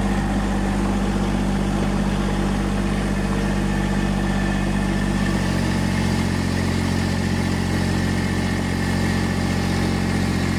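Ford 3000 tractor's three-cylinder engine running steadily; its note changes about halfway through as the engine speed shifts.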